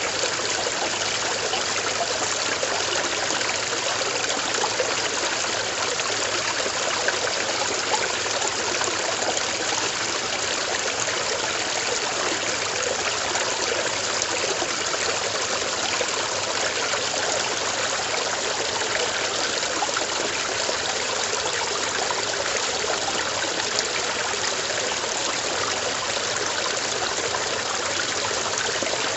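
Clear running water of a stream flowing steadily, an even rushing and trickling with no pauses.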